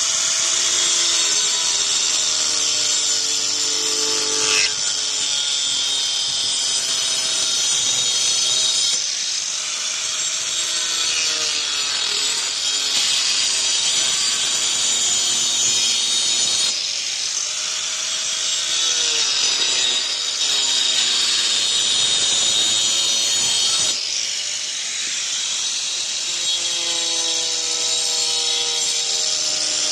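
Angle grinder fitted with a wood-cutting disc running and cutting through wooden boards, several cuts one after another. The motor's pitch sags as the disc bites into the wood and recovers between cuts, over a steady hissing of the disc in the wood.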